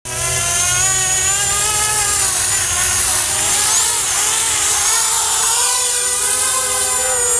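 Quad racer drone's electric motors and propellers running with a loud, steady multi-toned whine, the pitches wavering around the middle.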